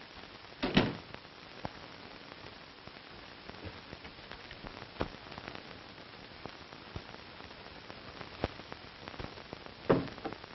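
Steady hiss and scattered crackle from an old 1940 film soundtrack, with two brief louder noises, one about a second in and one near the end.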